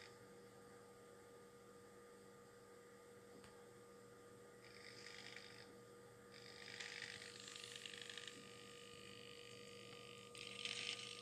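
Small radio-control servos inside an animatronic pilot figure's head whirring in short bursts as they turn the head, three times, each lasting a second or two, over a faint steady electrical hum.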